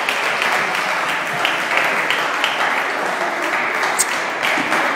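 Audience applauding steadily, a dense patter of many hands clapping, with one short high-pitched sound about four seconds in.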